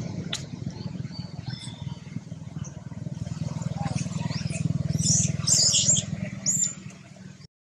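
Short high-pitched squeals from a juvenile long-tailed macaque, several in a cluster from about four to seven seconds in, over a steady low hum.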